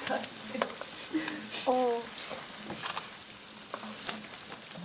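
Brain and sliced onions sizzling in oil in a frying pan, with metal tongs clicking and scraping against the pan as the brain is pressed and broken apart.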